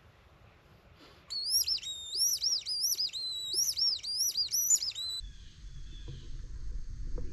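Squirrel distress call blown by mouth: a quick run of high, swooping squeals, about three a second, that stops abruptly after about four seconds. It imitates a squirrel in distress to draw squirrels into view.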